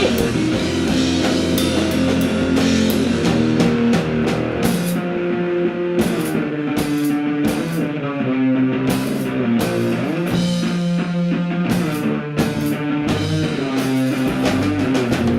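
Live rock band playing an instrumental passage: electric guitars and bass over a drum kit with steady cymbal and snare hits.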